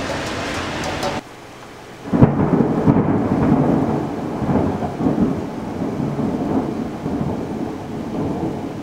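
A steady noise cuts off sharply about a second in. About two seconds in comes a loud burst of thunder that rolls on as a long, uneven rumble, slowly fading, with rain falling beneath it.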